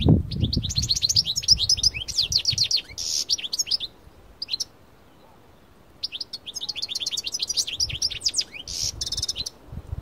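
European goldfinch of the parva race singing: two bursts of fast, twittering chirps, each ending in a buzzy trill, with a pause of about two seconds between them.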